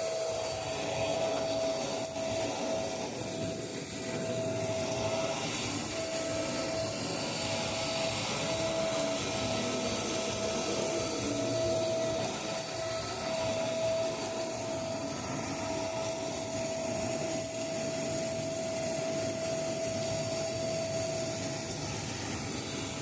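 Electrolux vacuum cleaner running steadily, with an even rushing noise and a steady whine that dips out briefly a few times.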